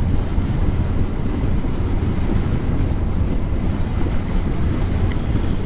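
Steady wind rush on a motorcycle helmet microphone at road speed, over a low, even rumble from the moving bike.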